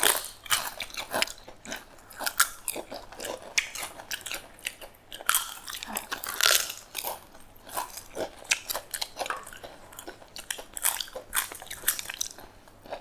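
Close-miked eating sounds from a rice-and-curry thali: chewing, with many small irregular crunches and wet clicks.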